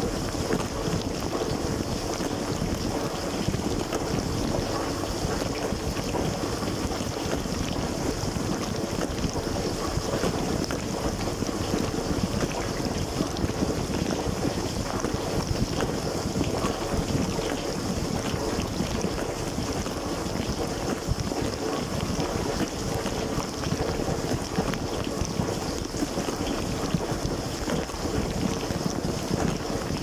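LG dishwasher in its wash cycle, heard from inside the tub: water jets from the spray arms spraying steadily over the dishes and racks, with the circulation pump running underneath.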